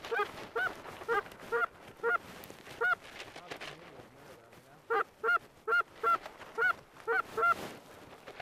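Goose honking: two runs of short, evenly spaced honks, about two a second, with a pause of about two seconds between the runs.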